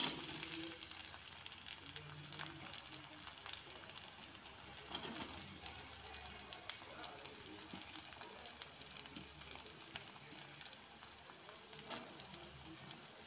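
Sliced onions sizzling in hot oil in a kadai, loudest as they drop in and then settling into a steady sizzle with scattered crackles and pops.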